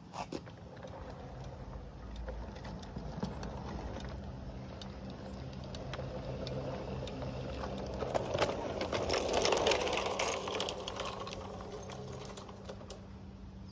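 Garden-railway model train running past close by: a steady motor whir with rapid clicking of wheels over rail joints and pointwork. It grows louder as it approaches, is loudest about two-thirds of the way through, then fades as it moves away.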